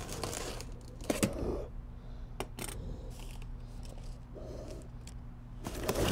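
Cardboard box being cut and pulled open: a few sharp scrapes and rustles of cardboard, with a longer burst of tearing and rustling near the end.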